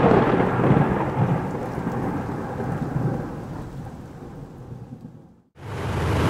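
A thunder rumble with rain-like hiss, fading slowly over about five seconds and then cutting off. After a brief silence, a tank's heavy engine starts up near the end as a deep, steady low rumble.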